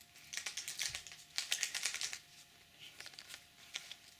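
Quick light clicks and rattles of a small plastic surprise-egg toy and its capsule being handled, coming in a dense run for about two seconds, then a few scattered clicks.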